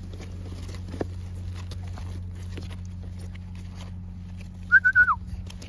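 A puppy whining: a short high-pitched whimper near the end, three quick notes at one pitch and then a falling note, over a steady low hum.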